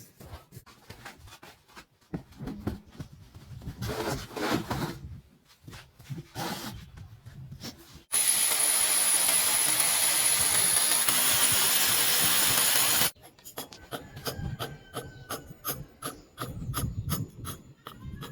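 Scraping, rasping and knocking of hand work on plumbing pipe and fittings, interrupted about eight seconds in by a loud steady hiss with a high whistle that lasts about five seconds and cuts off abruptly.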